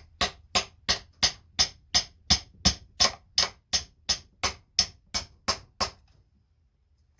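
Small hammer tapping metal in an even rhythm, about three light taps a second, stopping about six seconds in: a part is being tapped into place while a kill switch is fitted to a McCulloch Mac 1010 chainsaw.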